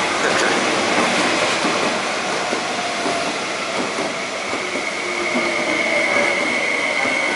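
MTR East Rail electric multiple-unit train running along the platform, with a steady rumble of wheels on track. A steady high whine comes in about halfway and grows stronger.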